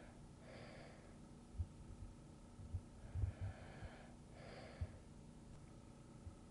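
Soft, slow breathing of a sleeping person: a few airy breaths, one about half a second in and two more around the middle. Occasional soft low thumps sound between the breaths.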